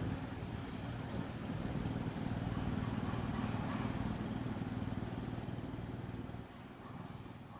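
Steady low rumble of a passing vehicle that dies away near the end.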